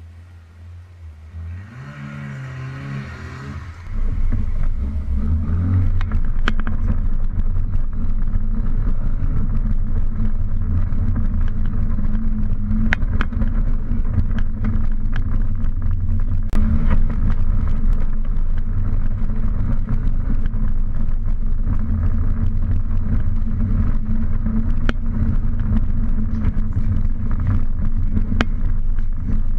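Volvo car driving on a gravel road, heard from inside the cabin: a steady low engine and road rumble with scattered sharp ticks. It starts quieter and becomes much louder about four seconds in.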